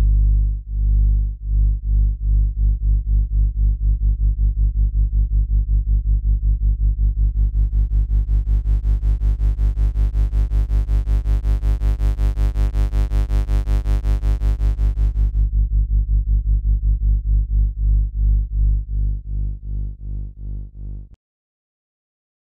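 Synthesized electrical hum from the AudioElec plugin's Hum module: a loud, low drone with a stack of overtones, wavering in level in a regular beat that quickens and later slows. From about seven to fifteen seconds in, bright buzzy overtones are added, and the hum cuts off abruptly about a second before the end.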